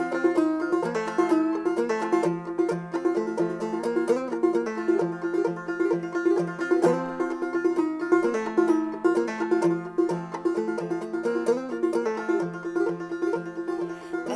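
Solo banjo playing an instrumental passage: a quick, steady run of plucked notes.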